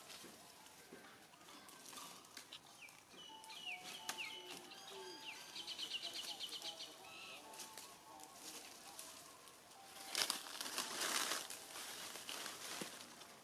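Dry leaf litter rustling and crackling as a baby monkey moves through it, loudest about ten seconds in. Wild birds sing in the middle: short whistled notes and a quick trill.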